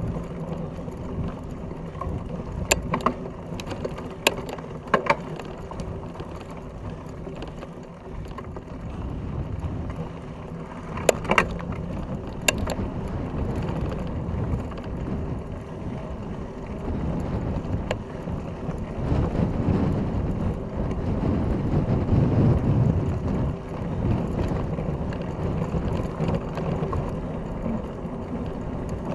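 Fat bike riding a dirt track, heard from a camera mounted on the bike: a steady rumble of the wide knobby tyre rolling over dirt, broken by sharp clicks and rattles of the bike on bumps, several in the first few seconds and a pair about eleven and twelve seconds in. The rumble grows louder about two-thirds of the way through.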